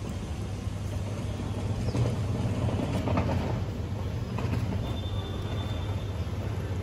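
Steady low mechanical rumble of vehicle engine noise, swelling slightly two to three seconds in, with a few faint ticks from a cat lapping milk off a plate.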